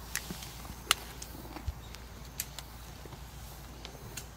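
Scattered light clicks and soft scuffs of hand gardening in soil as seedlings are set out and a hoe works the ground; the sharpest click comes about a second in.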